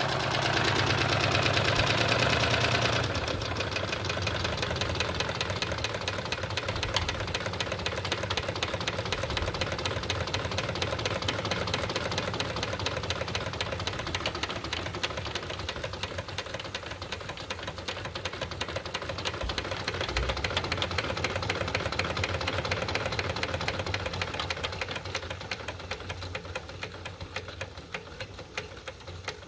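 Wilesco D32 toy steam engine running steadily under steam, a fast even stream of small ticks and chuffs from its two cylinders and linkage. Louder for the first few seconds, then easing off slightly toward the end.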